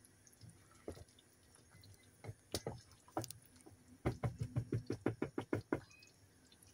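Silicone spoon stirring curry in a saucepan, knocking against the pan: a few separate knocks, then a quick run of about ten, some six a second, a little past halfway.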